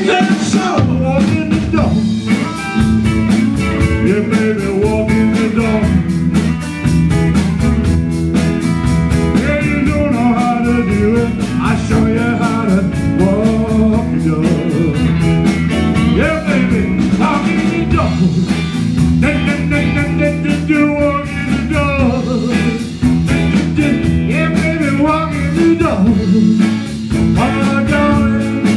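Live blues-rock band playing: electric bass, electric guitars and drums driving a steady beat, with a lead vocal line over them.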